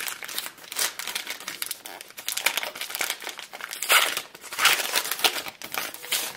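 Foil booster-pack wrapper of the Sim City trading card game crinkling and tearing as it is ripped open and pulled apart, in irregular crackly bursts, loudest about four to five seconds in.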